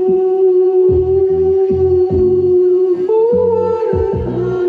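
Karaoke-style music: a backing track with a pulsing bass line under a melody held on long sustained notes, which steps up in pitch about three seconds in before dropping back.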